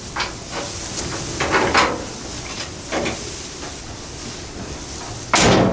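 Steel door of a chopped 1932 Ford coupe being handled on its hinges: a run of metal scrapes and knocks, with one loud knock near the end.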